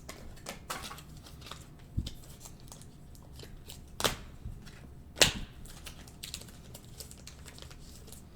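2020 Panini Prizm football cards being handled and flipped, with scattered soft clicks and slides, a dull thump about two seconds in and two sharper snaps about four and five seconds in.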